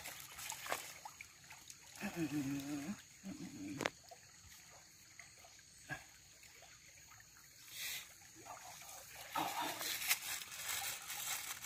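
Stream water trickling while a woven fish trap is handled, with scattered knocks and clicks. About two seconds in, a short wavering call sounds twice.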